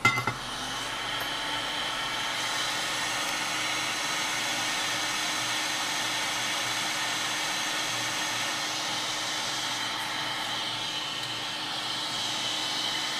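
Hot air rework station blowing a steady stream of air onto a circuit board, heating the pads of a removed component. A short click at the start, then the airflow hiss sets in and holds level.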